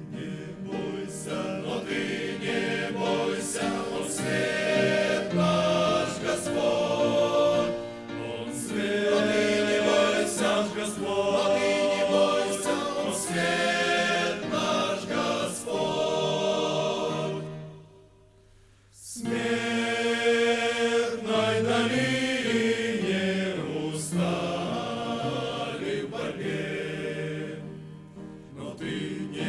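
A choir sings a religious song in long phrases, with one short break about two-thirds of the way through.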